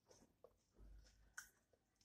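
Faint, quiet chewing of food with a few soft mouth clicks, barely above near silence.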